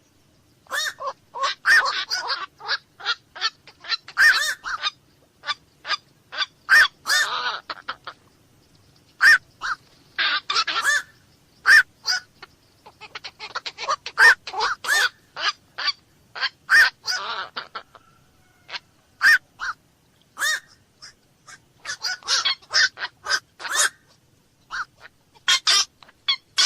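Black-crowned night heron calling: short, harsh single squawks repeated many times in quick runs, with brief pauses between the runs.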